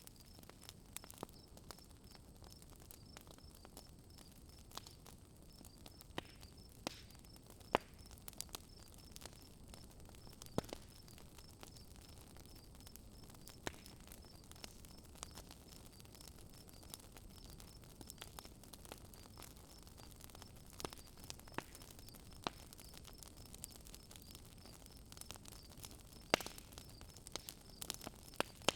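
Wood campfire crackling, with irregular sharp pops every second or so, over a steady, fast, high chirping of insects.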